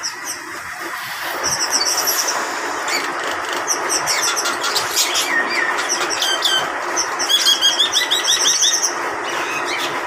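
A mixed flock of caged birds (mynas, cockatiels, lovebirds and Java sparrows) chirping and chattering together. Under a constant din there are many short high chirps and rapid repeated trills, thickest in the second half.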